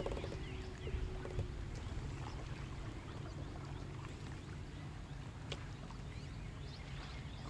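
Quiet on-the-water ambience from a fishing kayak: a steady low rumble with faint bird chirps and a few small clicks.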